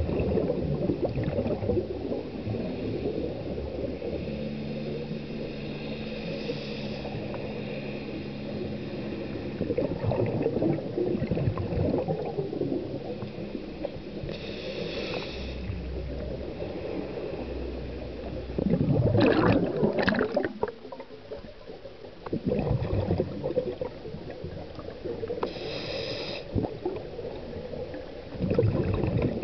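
Scuba regulator breathing heard underwater: slow breaths, each a brief hiss on the inhale, with bursts of bubbling as exhaled air escapes. About three breath cycles, the loudest bubbling about two-thirds of the way through.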